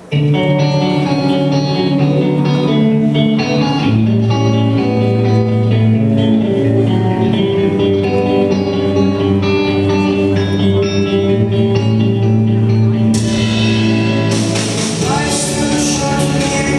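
Rock band music with guitar, starting abruptly. It turns brighter and fuller about 13 seconds in.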